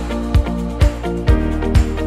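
Background music with a steady kick-drum beat, about two beats a second, under held synth chords.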